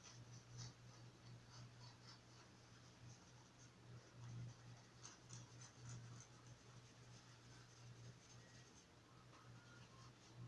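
Faint, scattered scratching and dabbing of a small paintbrush on card paper as white paint is daubed on, over a low steady hum.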